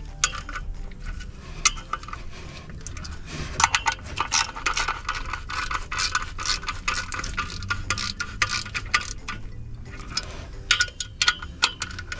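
Ratchet wrench clicking in quick runs, with metal clinks, as the bolts of a 2007 Ford Focus clutch pressure plate are turned on the flywheel.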